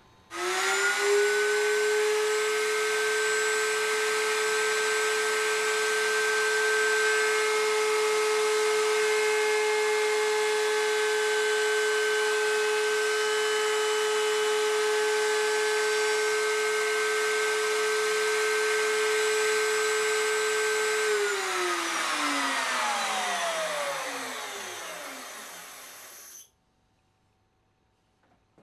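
Table-mounted router with a core box bit starting up and running at full speed with a steady high whine. About 21 seconds in it is switched off and winds down with a falling pitch, until the sound cuts off suddenly.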